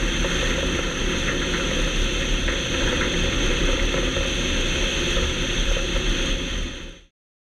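Zlin light aircraft's piston engine and propeller running at idle while taxiing, heard from a wing-mounted camera with a steady rush of airflow noise. The sound fades out near the end.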